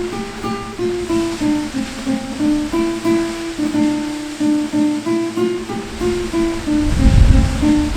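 Plucked acoustic guitar playing a slow melody of single notes, over a steady rush of water that swells low near the end.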